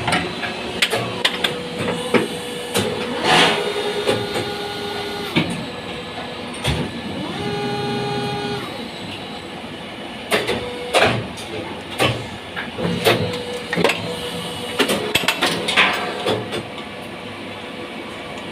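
Irregular knocks, clinks and clatter, with short steady tones here and there and a brief multi-toned whine about eight seconds in.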